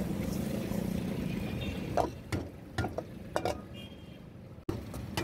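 Red slotted spatula stirring and tossing boiled noodles through sauce in a frying pan over a gas flame: over a steady low rumble, from about two seconds in, several sharp knocks of the spatula against the pan.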